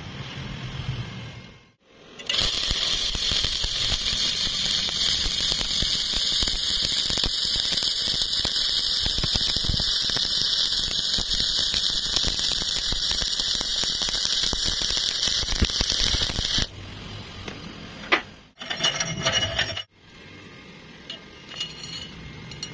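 Stick-welding arc burning a covered electrode on steel plate, crackling and hissing steadily for about fourteen seconds before cutting off. A sharp click and a second, short burst of noise follow near the end. The machine is probably set hot, around 140 amps, which the welder judges from the arrowhead-shaped ripples in the bead.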